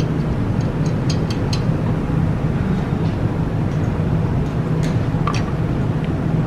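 A steady low rumble with a hum, with a few light clicks and clinks of hand tools at work on the car's brakes.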